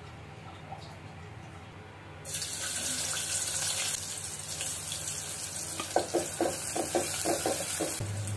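Sliced onions sizzling in hot oil in an aluminium pot, starting suddenly about two seconds in after a low steady hum. In the last couple of seconds a wooden spatula stirs them, scraping and knocking against the pot about four times a second.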